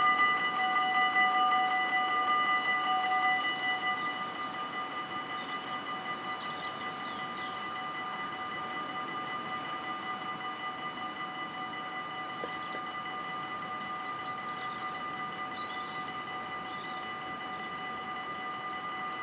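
Dutch level crossing warning bells ringing steadily while the barriers lower. About four seconds in the ringing drops to a quieter level, with the barriers now down.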